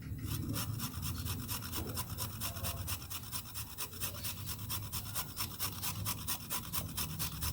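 Fresh turmeric root being grated by hand on a grater: quick, evenly spaced scraping strokes.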